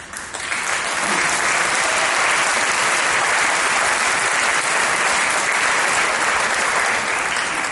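Audience applauding in a concert hall. The clapping builds within the first second, holds steady, and dies away near the end.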